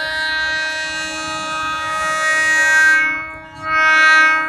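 Diesel locomotive's horn sounding a long, loud blast, breaking off briefly about three and a half seconds in, then sounding again as the train approaches.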